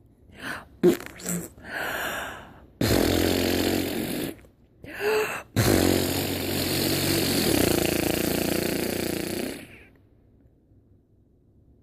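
Funny noises made by a person: a few short sounds, then two long, rough, buzzing noises. The first lasts about a second and a half; the second runs about four seconds and stops near the end.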